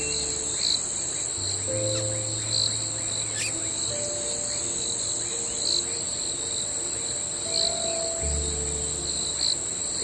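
Steady high, shrill insect trilling with soft swells every second or two, over calm background music of held chords.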